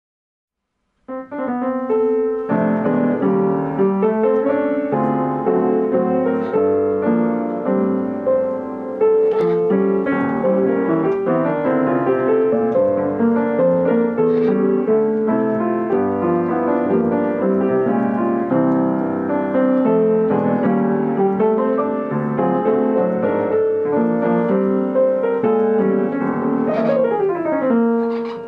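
Yamaha Disklavier piano playing a continuous piece of music, starting about a second in, with a quick downward run of notes near the end.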